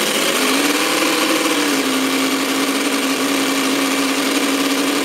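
Quarter-scale model V8 engine (6.28 cu in) with a scale GM 6-71-type supercharger and stainless headers, throttled up from idle to about 4,000 RPM. Its note climbs over the first second and a half, then holds steady at that speed.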